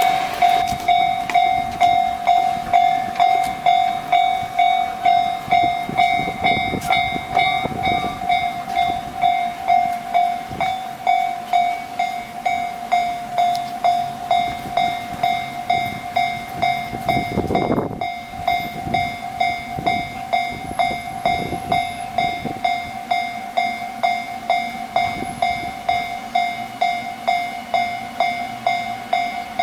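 Japanese level-crossing alarm ringing: an electronic bell tone repeated in quick, even strokes, the signal that a train is approaching the crossing. Under it runs the noise of passing trains, swelling briefly a little past the middle.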